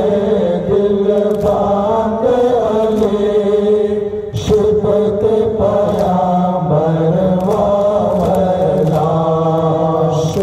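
A group of men chanting a noha, an Urdu mourning elegy, in unison behind a lead voice on a microphone, in long, slow melodic lines over a steady low held note. There is a brief break about four and a half seconds in.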